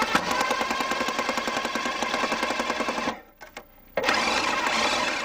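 Power driver running a self-drilling screw into the steel rib under a school bus floor, a fast hammering rattle over a motor whine. It stops about three seconds in, then starts again about a second later.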